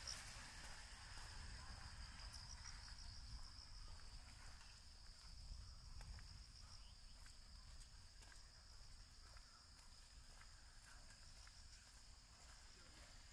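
Faint insect chorus: a steady, even high-pitched trill, over a low rumble.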